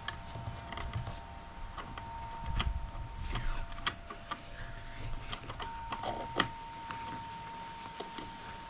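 Scattered clicks, taps and knocks of the old backpack straps and their fittings being worked off a backpack leaf blower's frame, the sharpest knock a little past the middle. Wind rumbles on the microphone, and a faint steady high tone runs underneath.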